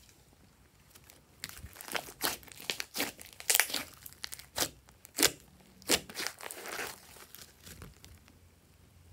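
Glossy slime being stretched and squeezed by hand, giving a run of sharp pops and crackles as it is pulled and pressed. The pops start about a second and a half in, come about two a second, and die down near the end.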